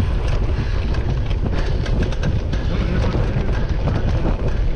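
A cyclocross bike ridden fast over bumpy grass, heard from a camera mounted on the bike: a steady low rumble of wind on the microphone and tyres on turf, with frequent small clicks and rattles from the bike.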